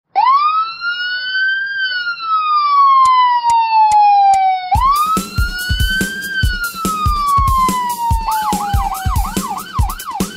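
Police car siren: two long wails, each rising and then slowly falling, giving way near the end to a fast yelp of about three cycles a second. A steady drum beat comes in about halfway.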